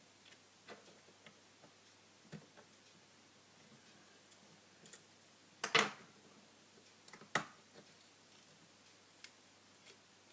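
Scattered small clicks and taps of tools and phone parts being handled during a smartphone screen repair, with two louder clicks about six and seven and a half seconds in.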